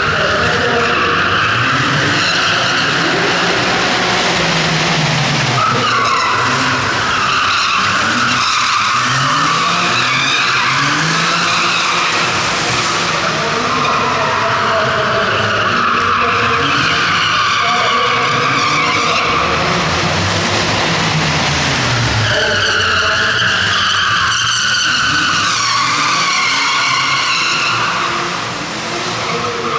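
Porsche 997 Carrera race cars' flat-six engines revving up and falling back again and again while their tyres screech through long drifts.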